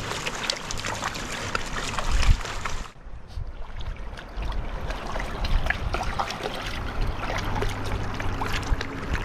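Glacial meltwater creek flowing and splashing over rocks, with many small splashes throughout. The sound drops and thins abruptly about three seconds in, then the flowing water carries on.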